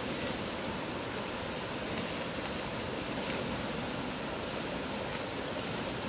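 Mountain river flowing fast over rocks: a loud, steady rush of water.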